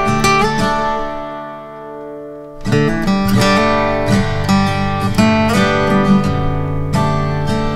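Background acoustic guitar music with plucked and strummed notes; it eases off for about a second and comes back in fuller just under three seconds in.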